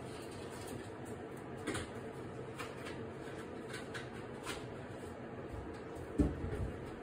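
Quiet kitchen room tone with a steady low hum, a few faint light clicks, and a short soft thump about six seconds in.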